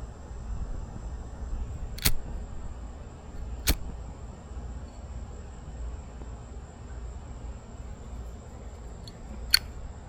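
Three sharp single clicks, about two seconds, three and a half seconds and nine and a half seconds in, over a low steady rumble.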